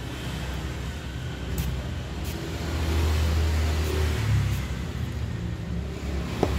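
Two quick spritzes from an aluminium finger-pump spray bottle misting into a bowl of water, less than a second apart, over a low rumble that swells in the middle.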